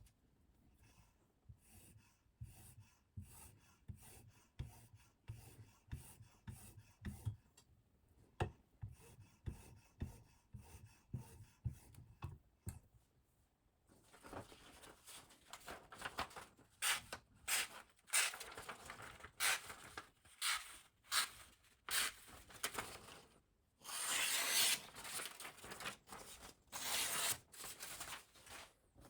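Freshly sharpened Damascus chef knife slicing through paper: soft clicks and light handling at first, then from about halfway a quick run of short rustling, tearing cuts, with one longer cut near the end.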